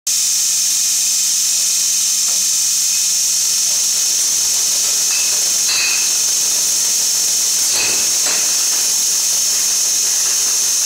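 Vacuum bottle filling machine running: a loud, steady hiss of air with a low hum underneath, and a few brief clicks near the middle.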